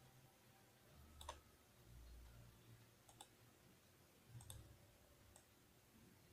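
Near silence: room tone with four faint, sharp clicks spaced out a second or two apart, the clicking of a computer's mouse and keys as it is worked.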